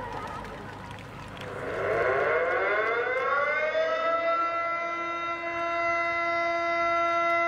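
Civil-defence siren winding up. About a second and a half in, a rising wail climbs for about three seconds, then holds one steady tone.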